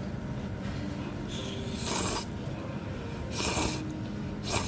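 A person slurping noodles from a bowl: three short, hissing slurps, the second the longest and the last brief, near the end.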